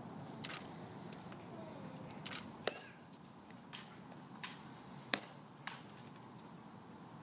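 A series of sharp clicks at irregular intervals, about seven in all, two of them much louder than the rest, over a low steady background.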